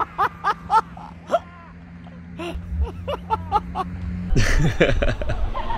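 Baseball players' voices: a quick run of short, repeated shouts in the first second and a half, then louder overlapping voices over a low rumble from about four seconds in.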